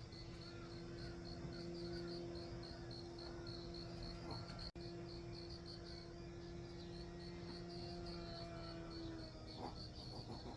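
Crickets chirping in a steady pulsing rhythm, about three chirps a second. A faint steady hum lies underneath and stops near the end.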